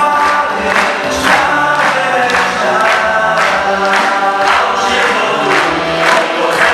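A song sung by many voices together, with hands clapping in time, about two claps a second.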